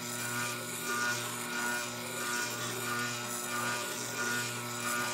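Tormek wet grinder running with its steady motor hum while a hand plane blade grinds against the turning stone, the grinding swelling and easing regularly as the blade is slid across the wheel.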